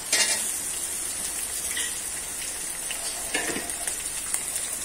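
Food sizzling as it fries in hot oil in a steel wok, with a short burst as more ingredients are tipped in at the start. Two brief metal scrapes come about two and three and a half seconds in.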